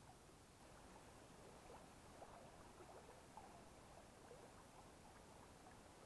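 Near silence: the faint babble of a shallow forest stream, with soft little gurgles of water.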